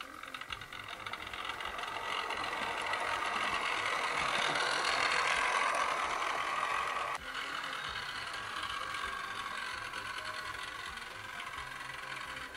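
Bachmann OO gauge Class 350 model train running on the track, a steady motor hum and wheel noise that grows louder as it passes close by. About seven seconds in the sound drops suddenly to a lower, steadier running sound.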